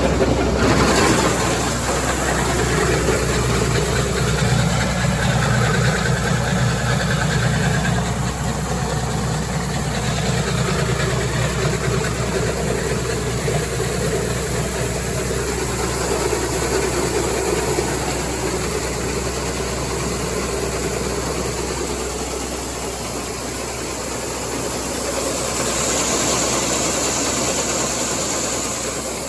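Tractor engine running steadily, louder for the first several seconds and then easing to a lower, settled run.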